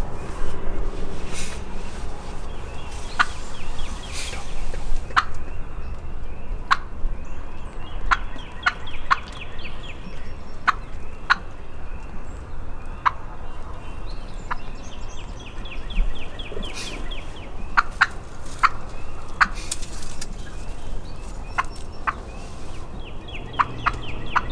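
Wild turkey gobbling: several short rattling calls through the stretch, with short sharp ticks or chirps scattered between them.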